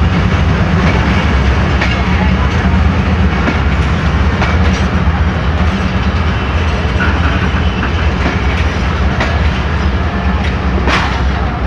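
Passenger coaches of a diesel-hauled express train rolling past along a station platform: a steady low rumble with the clatter of wheels over the rails.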